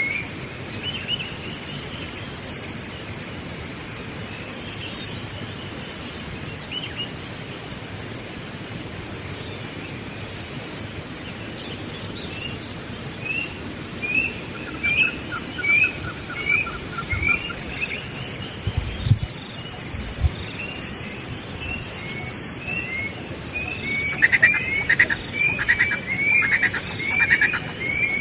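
Wild birds calling, many short chirping notes repeated in quick series, growing denser near the end, over a steady high insect drone. A couple of low thumps come about two-thirds of the way through.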